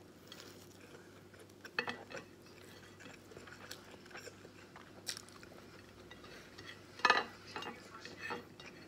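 Eating by hand from a ceramic plate: fingers scraping and tapping on the plate as rice is scooped up, along with chewing, heard as scattered short clicks with the loudest about seven seconds in.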